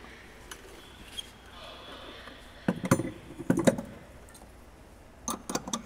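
Sheet-metal aircraft parts being handled by hand: a few short knocks and clinks about halfway through, then a quick run of clatters near the end, against quiet hangar room noise.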